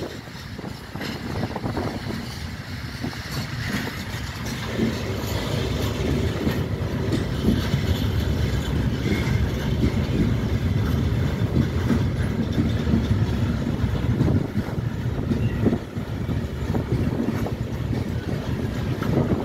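Freight train of bogie hopper wagons rolling past: a steady rumble of steel wheels on the rails, with scattered short knocks as the wheels pass over the track.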